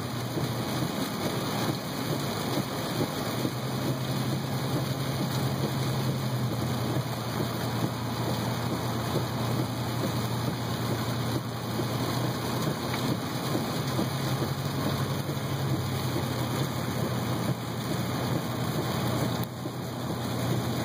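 Rain hitting a moving car, heard from inside the cabin as a steady hiss, with the car's low running hum of engine and wet road underneath.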